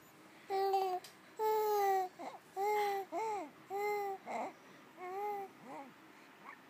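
A baby babbling: a string of short, high sing-song vowel sounds, each about half a second long, with brief pauses between them.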